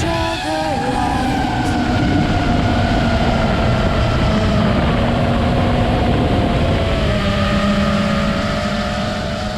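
FPV quadcopter's motors whining, their several pitches wavering up and down with throttle, over a steady rush of wind.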